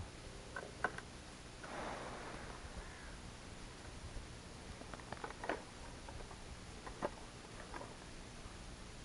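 Faint clicks and scrapes of a plastic winter pike tip-up being handled and set over an ice-fishing hole. There is a short rustling scrape about two seconds in and small clusters of clicks later.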